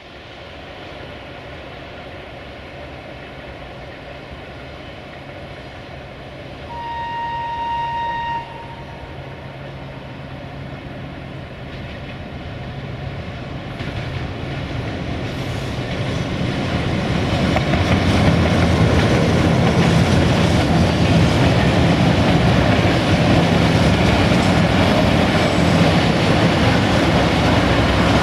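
Electroputere 060-DA (LDE2100) diesel-electric locomotive with a freight train approaching, its Sulzer diesel engine growing steadily louder as it nears. About seven seconds in it sounds one horn blast lasting about a second and a half.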